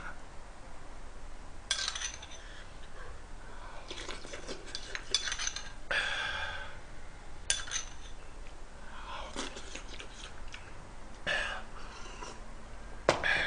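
A metal spoon clinking and scraping against a small bowl several times, with chewing sounds, as a man eats.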